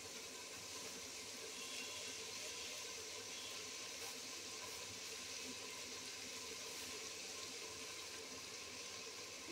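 Keema, masala and mustard oil cooking in an open pressure cooker over the flame, giving a faint, steady sizzle.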